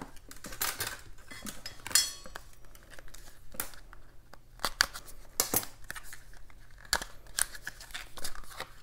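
Scissors snipping through packing tape on a small boxed item: irregular short cuts with rustling of the packaging between them.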